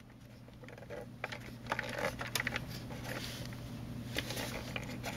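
Light plastic clicks and rustles from hands pressing and handling a toy RC tank's plastic road wheels and suspension bogies.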